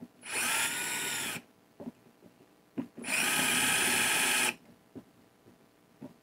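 Power drill boring a shallow recess into wood to deepen the seat for a recessed keyhole hanger. It runs in two bursts, about a second and then about a second and a half, with a few light knocks in between.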